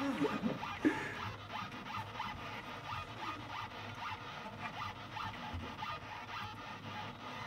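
Delta parallel robot drawing with a marker on paper: short, quick rasping strokes from its motors and pen, several a second, over a faint steady low hum.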